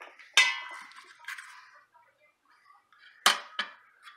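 A serving spoon clinking against the stainless-steel inner pot of an electric pressure cooker while rice is scooped out. One ringing clink comes about half a second in, then a softer one. Two sharp knocks follow close together about three seconds in.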